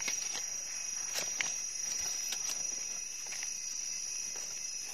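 Steady high-pitched insect chorus, with scattered light clicks and rustles of hands and a small blade digging mushrooms out of soil and leaf litter.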